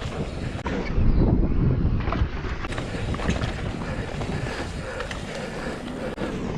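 A vehicle running at speed with heavy wind buffeting on the microphone. It rises in a louder surge about a second in.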